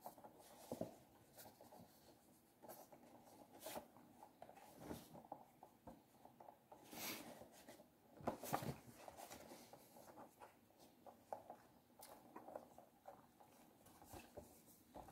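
Near silence, with faint scattered taps and rustles of a cardboard Funko Pop box being turned over in the hands.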